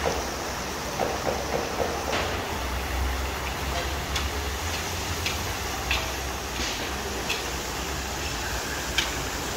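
Giant plov kazan boiling hard over a full fire: a steady rumbling hiss, with a long-handled metal ladle knocking and scraping against the cauldron every second or two.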